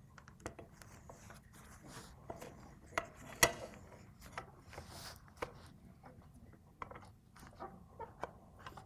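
Scattered light clicks and knocks of the steel parts of a Hardinge cross slide being handled and set together on a bench, with two sharper knocks about three seconds in.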